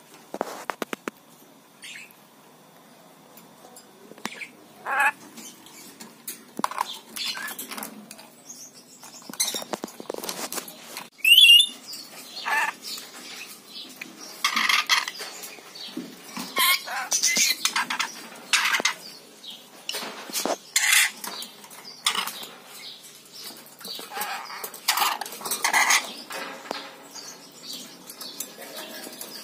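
A rainbow lorikeet clambering about its wire cage: its beak and feet clink on the metal bars and steel bowl, with wing flaps and a loud, short rising squeak about eleven seconds in.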